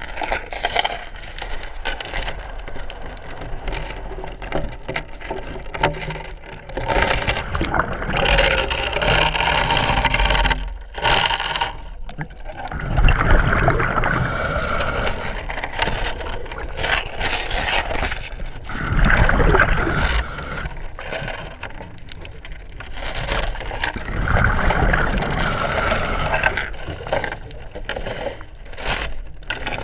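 Scuba regulator breathing underwater: hissing inhalations alternating with gurgling rushes of exhaled bubbles, swelling and fading in cycles every few seconds.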